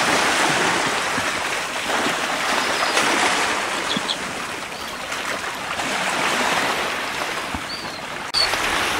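Small waves washing and lapping over shallow water against a rocky shore, swelling and easing. The sound breaks off abruptly near the end.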